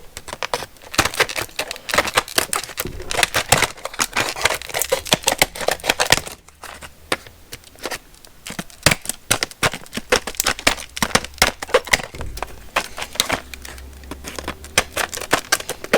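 Small hand cutters snipping and prying open a hard plastic blister package, with a dense run of irregular clicks and crackles of the plastic. The clicking thins out briefly near the middle.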